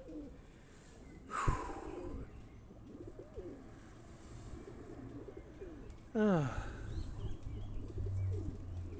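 Pigeons cooing: several low gliding coos, the loudest a falling coo about six seconds in. There is a sharp tap about a second and a half in.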